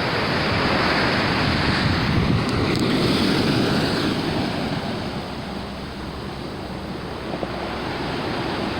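Pacific Ocean surf crashing on the shore: a steady rushing wash, loudest in the first few seconds, easing off in the middle and building again near the end, with wind on the microphone.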